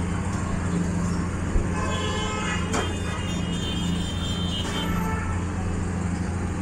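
A large wok of hot oil deep-frying fish, hissing over a steady low hum. Traffic and a brief vehicle horn sound in the background.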